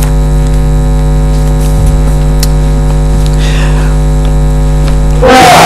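Loud, steady electrical mains hum: a low buzz with many evenly spaced overtones and nothing else over it. It cuts off suddenly about five seconds in, as a man's voice starts.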